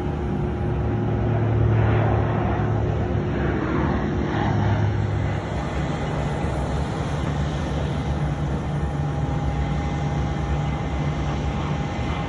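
Aircraft engine noise across an airfield: a steady low drone with a thin steady whine, louder for a few seconds about two seconds in.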